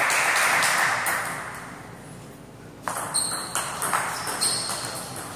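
Table tennis ball being served and rallied: a quick series of sharp, ringing clicks as the ball strikes the rubber paddles and the table, starting about three seconds in. Before it, a haze of hall noise fades away over the first couple of seconds.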